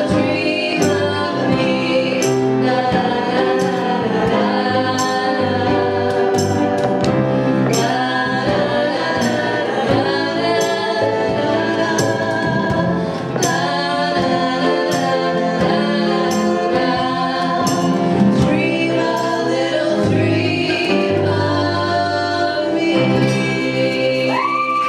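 Live acoustic folk-pop song: female and male voices singing in harmony over a strummed acoustic guitar, with a steady beat of hand hits on a cajon.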